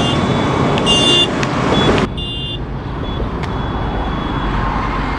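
Road traffic on a bridge: passing vehicles, with short high-pitched beeps during the first two seconds. The sound changes abruptly about two seconds in to a quieter, steady traffic rumble.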